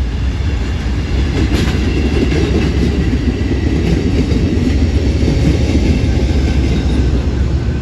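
Amtrak Heartland Flyer passenger train rolling past, a steady heavy rumble with a few sharp clicks of wheels crossing rail joints.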